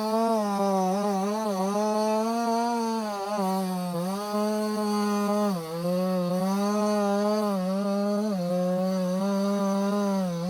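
68cc two-stroke chainsaw running at full throttle while cutting through wood, its pitch dipping briefly several times as the engine is loaded in the cut.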